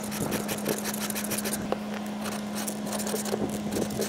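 Stihl 2-in-1 chain sharpener rasping across a chainsaw chain's teeth in quick short strokes for the first couple of seconds, then scattered knocks as the saw is turned around. A steady low hum runs underneath.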